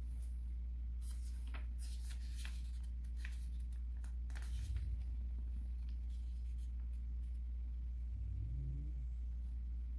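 Paper rustling and light scratching, as in handling a book's pages while reading, over a steady low hum. The rustles come in a cluster during the first half and die away after about five seconds.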